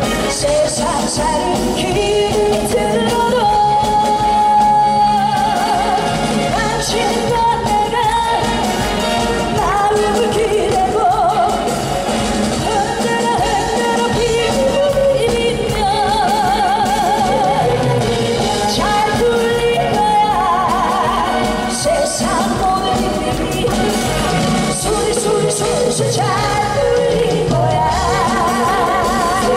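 A woman singing a Korean trot song into a microphone over band accompaniment, with vibrato on her held notes.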